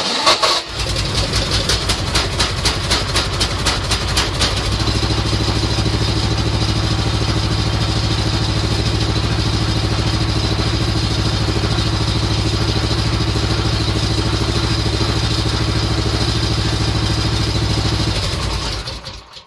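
An electric car starter (a classic VAZ starter driving a VAZ-2109 flywheel) cranks the homemade mini-tractor's air-cooled engine for under a second, and the engine catches with a knock. The builder puts the knock down to the starter bracket lacking its third mounting bolt. The engine runs with a pulsing beat for a few seconds, settles into a steady idle, and is shut off near the end.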